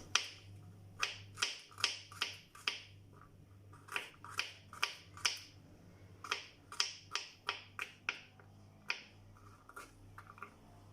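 Knife finely chopping garlic: sharp taps of the blade in quick runs of two to four, with short pauses between runs.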